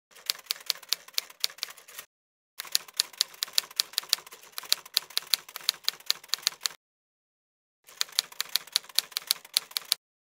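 Typewriter typing sound effect: rapid keystrokes at about five a second, in three runs separated by dead silence.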